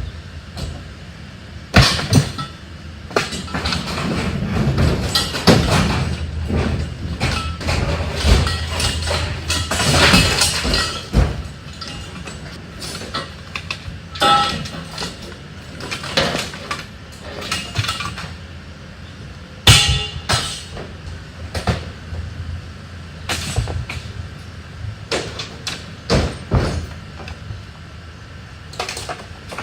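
Junk and scrap metal being thrown, dropped and dragged on a truck bed: an irregular run of clanks, bangs and scrapes, the loudest a sharp bang about twenty seconds in.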